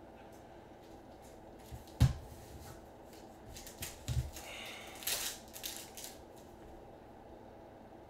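Trading cards being handled and flipped through by gloved hands: scattered card rustles and clicks, with a louder run of rustling between five and six seconds in. A dull knock about two seconds in is the loudest sound, and a couple of softer knocks follow around four seconds.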